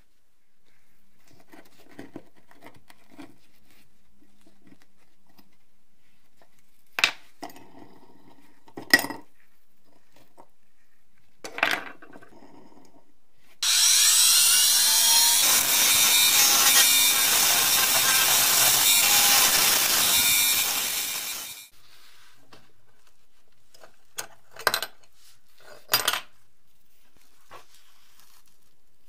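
Handheld rotary tool with a pink abrasive stone bit spins up and grinds on the rusty metal base for about eight seconds, then winds down. Before and after, there are several sharp knocks of small metal parts handled on a wooden tabletop.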